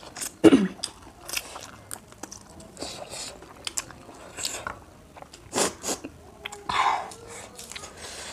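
Close-up eating sounds of spicy instant noodles being slurped and chewed, with wet smacks and clicks. About half a second in comes a short throaty sound, the loudest moment, and two louder slurps or coughs come later.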